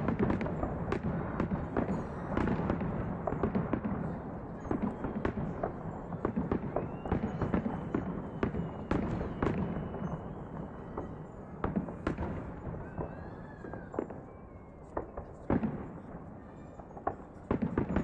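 Aerial fireworks shells bursting overhead: a rapid run of bangs over a continuous rumble, dense at first and thinning to separate booms later on.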